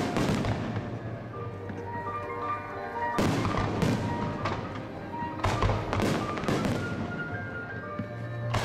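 Aerial fireworks bursting: a bang at the start, then a quick run of bangs with crackling tails from about three seconds in, and another near the end, over music playing along with the display.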